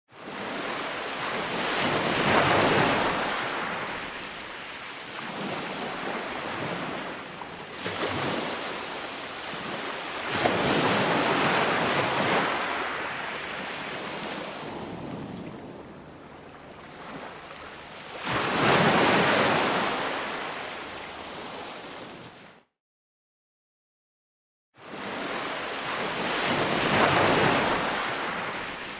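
Ocean waves breaking and washing back, in slow swells that build and fade about every eight seconds. The sound drops out to complete silence for about two seconds near the end, then resumes.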